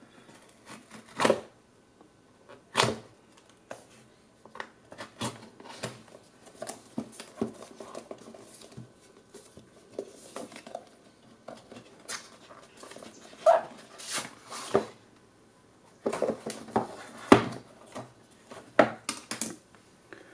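LG V10 retail box and its packaging being opened and handled by hand: scattered taps, clicks and rustles of cardboard and plastic, with a few louder knocks about a second in, near three seconds and in the last few seconds.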